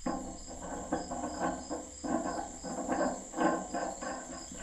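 Crickets chirping steadily in the background, under irregular clunks and scrapes of hands-on work.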